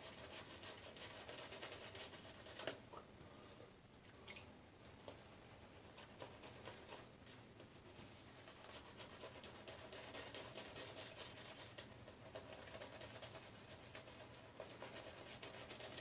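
Badger shaving brush working soap into lather, a soft, continuous scratchy rubbing of wet bristles, with a couple of faint taps a few seconds in.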